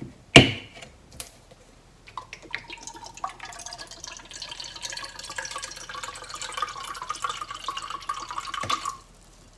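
A sharp click near the start as a plastic bottle's flip-top cap is opened, then mirin poured from the bottle into a plastic measuring cup: a trickling stream whose pitch climbs steadily as the cup fills, stopping shortly before the end.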